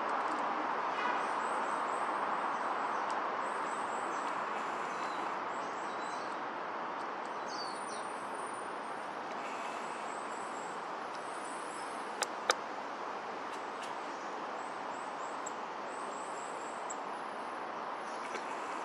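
Steady outdoor background rush with small songbirds giving short, high, thin calls over and over. Two sharp clicks come close together about twelve seconds in.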